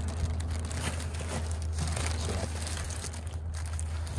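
Crinkling and rustling of packaging as small smoker latches are handled, over a steady low hum.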